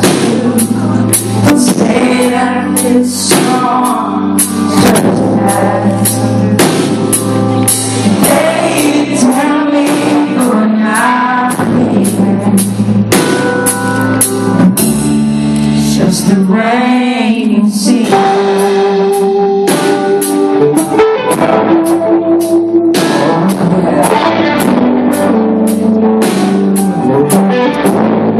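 A live band playing: a man singing over electric guitar and a drum kit keeping a steady beat, recorded from the audience on a phone microphone.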